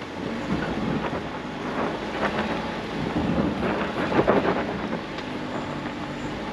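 SUV driving up a rough dirt road: a steady rumble with tyres crackling and popping over loose dirt and stones, loudest about four seconds in.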